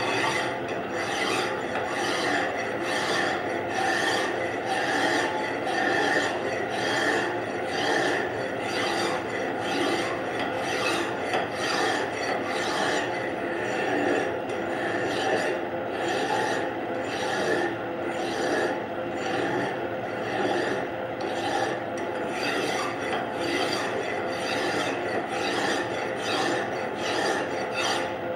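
Flat hand file rasping back and forth against a metal workpiece spinning in a bench-top lathe, smoothing the freshly turned surface, in evenly repeated strokes over the lathe motor's steady hum.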